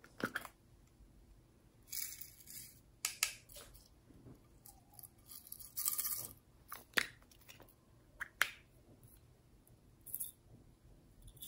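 Small plastic toy-shaped containers of sequins, glitter and slime being handled: sharp plastic clicks and taps, and a few short rustling bursts of loose sequins and glitter.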